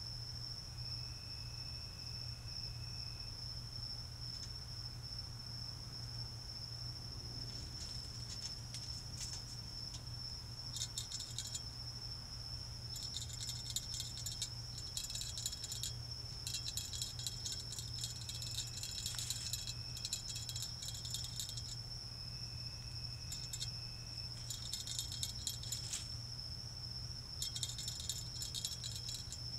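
Night insects calling: a steady high-pitched cricket trill, joined from about a third of the way in by groups of rapid high rasping pulses from another insect. A low steady hum lies underneath.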